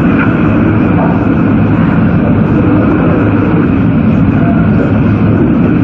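Hurricane-force wind blowing hard and steadily through trees, loud and rumbling, with gusts buffeting the phone's microphone.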